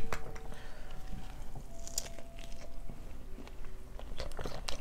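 Close-miked eating sounds: chewing, with scattered small clicks and taps of a fork and fingers at the plate.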